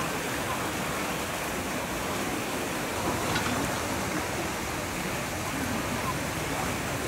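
Steady rush of turbulent water pouring through a concrete dam sluice culvert. A single short knock sounds a little over three seconds in.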